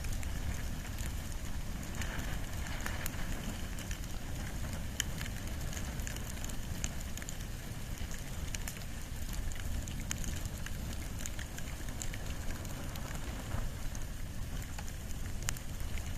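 Wood and bamboo fire crackling, with frequent sharp pops over a steady low rumble.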